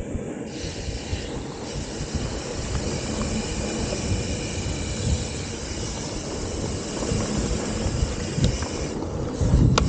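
Mountain bike rolling fast along a dirt singletrack: wind buffeting the camera microphone over a steady rumble of tyres on packed dirt. A single sharp click sounds near the end.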